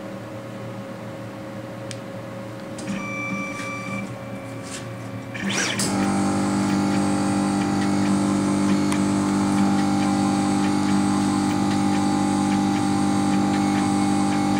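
Laser cutter starting a cutting job: a short tone about three seconds in, then just before six seconds its exhaust blower spins up with a quick rising whine into a loud steady hum, with faint ticking from the moving head over it.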